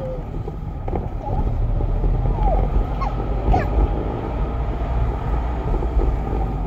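Peugeot 307 1.6 driving, heard from inside the cabin: a steady low rumble with a few short squeaks around the middle. The car has a strange whistling and grinding noise while moving that the owner cannot yet explain.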